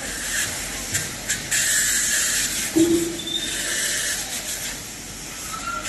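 AT-S2000 CNC panel bender running a bending cycle on sheet metal: a steady hissing machine whine, with a few clicks and a heavier thump about three seconds in, easing off near the end.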